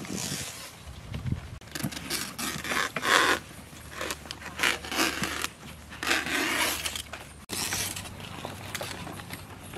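Fresh banana leaves rustling and scraping as they are spread out and wiped by hand with a cloth, in uneven swishes.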